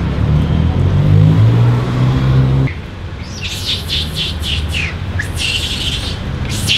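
A vehicle engine runs with a steady low hum, cut off suddenly a little under three seconds in. Then come repeated shrill, squawking screeches in short falling strokes from long-tailed macaques.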